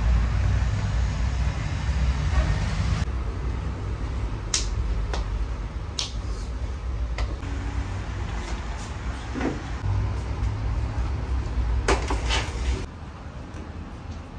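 Water flicked into a hot tandoor hissing into steam over a low rumble for the first few seconds. Then come a few sharp knocks and taps as raw samsa are pressed onto the tandoor's clay wall.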